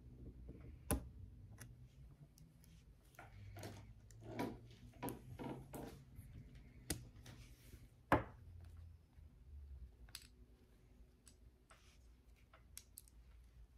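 Small metal clicks and taps of fine-tipped circlip pliers working the piston pin circlip out of a nitro engine piston and conrod, with soft handling rustle. Two sharper clicks stand out, about a second in and about eight seconds in.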